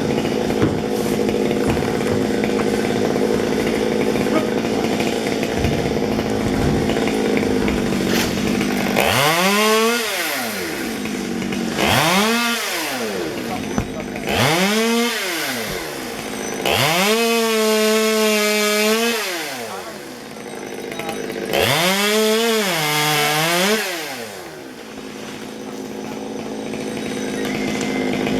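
Chainsaw idling, then revved up to high speed five times, each rev rising and falling back, the fourth held high for about two seconds and the last dipping in pitch midway, before it settles back to idle.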